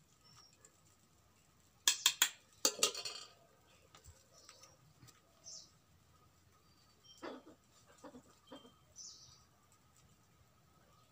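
A steel spoon clinks against a steel plate several times in quick succession, about two to three seconds in, while food is served. Faint bird chirps and a few faint animal calls follow in the background.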